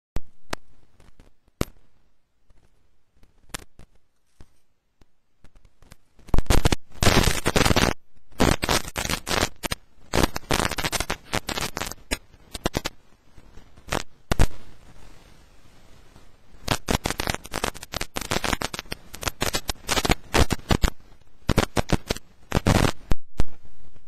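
Loud crackling noise in irregular bursts with short gaps. Scattered clicks come first, and the dense crackle starts about six seconds in.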